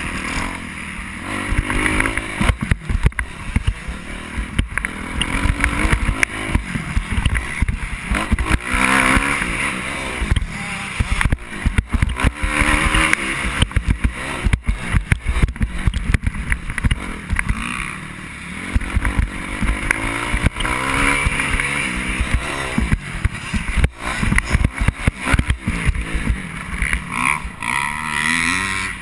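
Dirt bike engine ridden hard on a motocross track, revving up and dropping back over and over as the rider works the throttle and gears over the jumps. Wind buffeting and frequent knocks and thumps cut across it on the on-board microphone.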